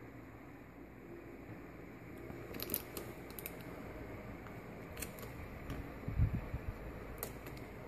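Small handling noises from a laptop screen being fitted: a few sharp little clicks and a couple of soft bumps as the display cable's connector is worked into the socket on the back of the new panel.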